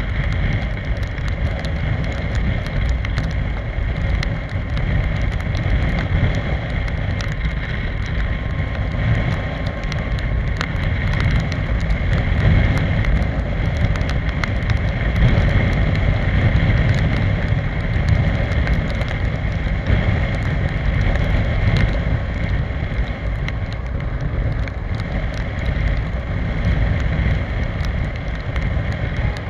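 Steady wind rushing over the microphone of a Piaggio X Evo 125 scooter riding at road speed in rain, with the scooter's engine and the hiss of tyres on the wet road underneath.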